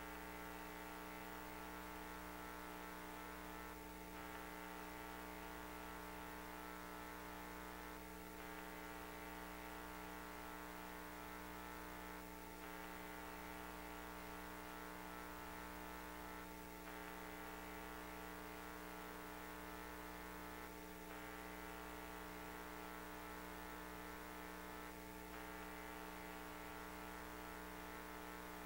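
Steady electrical hum from pipe-inspection camera equipment, a stack of fixed tones, with a faint brief break about every four seconds.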